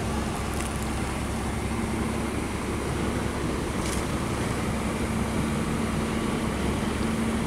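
Boat engine running steadily, a constant low drone with a steady hum.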